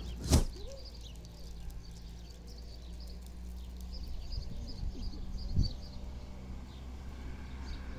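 Faint chirping of small birds over a steady low rumble of outdoor ambience, with a sharp knock just after the start and a duller thump about five and a half seconds in.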